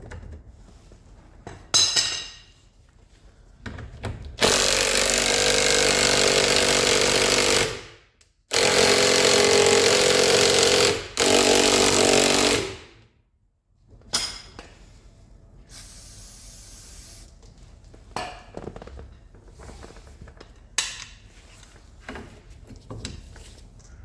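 Impact wrench run in three bursts, the first about three seconds long and the next two shorter, breaking loose a suspension hub nut. A few short metallic knocks come before and after.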